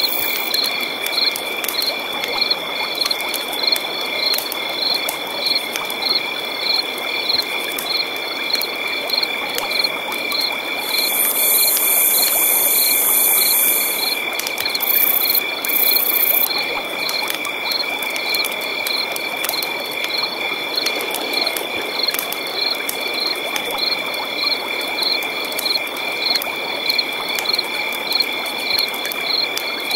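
Night forest chorus of insects and frogs: two steady high trills and a cricket chirping about twice a second over a dense background of frog calls. A higher buzzing insect joins from about eleven to fourteen seconds in.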